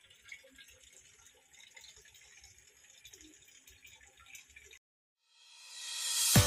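Faint open-air background hiss with small scattered sounds. After a brief dead silence, a rising whoosh swells over about a second into the first loud beat of outro music near the end.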